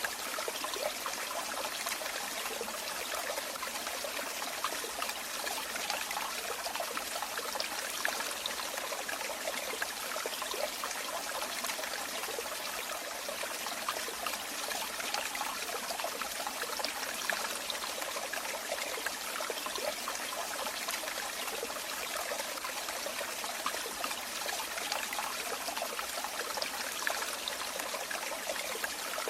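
Running water trickling and splashing steadily, a constant bright rush with fine flickering detail and almost no deep rumble.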